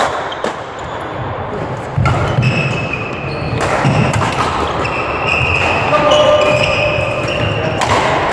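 Badminton rally in a large echoing hall: rackets hit the shuttlecock in several sharp smacks, with short squeaks from court shoes on the floor between the hits.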